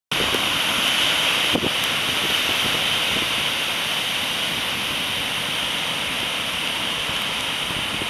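Heavy post-typhoon surf breaking and washing up a sand beach, a loud, steady wash of noise, with strong wind buffeting the microphone.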